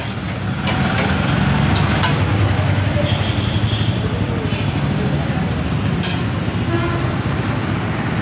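Steady low rumble of road traffic, with people's voices chattering in the background.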